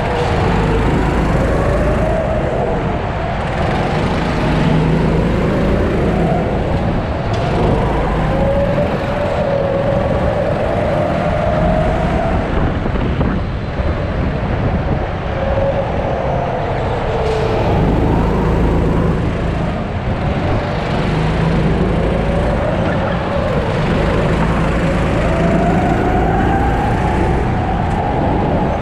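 Sodi 270 cc four-stroke kart engine at racing pace, heard onboard. Its revs climb and fall again and again as the kart accelerates out of the corners and slows into them.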